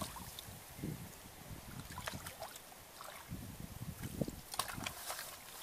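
Hands sloshing and splashing in shallow muddy water while groping for fish, in soft, irregular bursts with a few small clicks.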